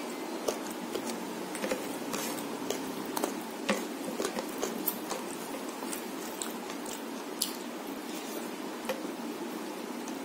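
Fingers mixing and squeezing rice with chicken curry on a plate: soft wet squishes and scattered small clicks, with some chewing, over a steady hiss.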